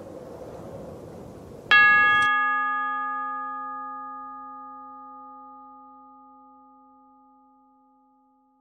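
A single struck bell tone about two seconds in, with several overtones, ringing out and slowly fading away. A faint hiss underneath stops just after the strike.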